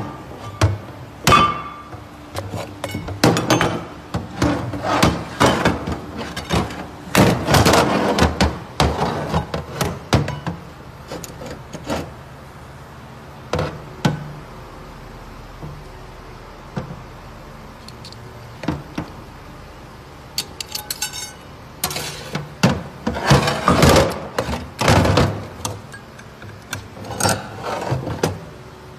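Irregular metal clanks and clinks as the parts of a cut-open automatic-transmission torque converter are handled: the converter halves and steel clutch plates knock against each other and the bench. The clatter comes in two busy spells, with a quieter stretch of a few scattered clicks in the middle.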